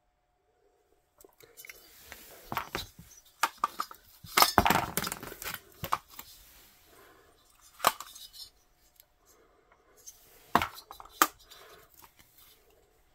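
Aluminium VW cylinder head being handled and turned over on cardboard: rustling and scraping with sharp metallic clinks and knocks, busiest about four to six seconds in, then a few single knocks.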